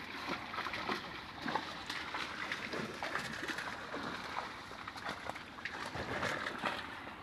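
Water splashing and sloshing irregularly in a shallow pond as a fishing net is hauled through it, with many small splashes.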